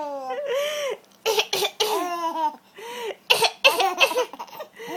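A 5-month-old baby laughing in repeated high, arching bursts, with an adult's short coughs between them that set the laughter off.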